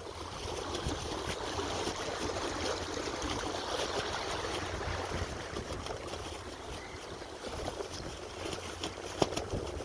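Water sloshing and trickling, with wind rumbling on the microphone underneath; a sharp click sounds about nine seconds in.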